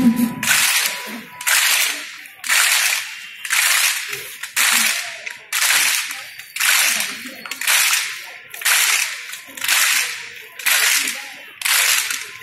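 A large group of students clapping their hands in unison in a drill: a steady rhythm of about three claps every two seconds, each clap slightly spread out by the many hands.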